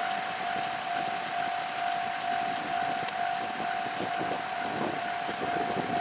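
Japanese railway level-crossing warning bell ringing, a single high tone repeating at an even, rapid pace. It signals that a train is approaching and the barriers are down.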